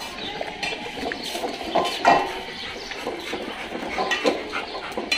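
Dogs eating from stainless steel bowls on a tiled floor: the bowls clink and knock irregularly, with the loudest knock about two seconds in.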